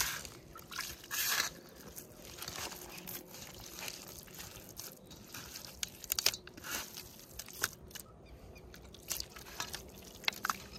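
A hand squeezing and mixing a moist fish-bait mash in a stainless steel bowl: irregular wet squelching and crunching, with a few sharp clicks.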